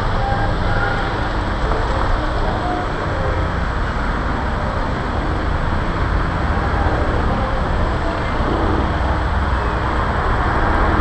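Steady road traffic noise from cars passing on a busy city street, a continuous rumble with no single event standing out.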